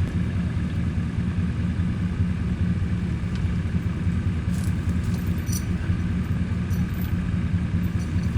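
A vehicle engine running steadily at an even low pitch, with a few faint clicks over it.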